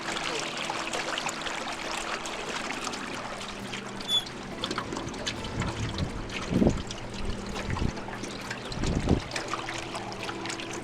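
Water trickling and lapping against the hull of a small boat moving slowly, over a steady low hum from its motor. A few low thumps come in the second half.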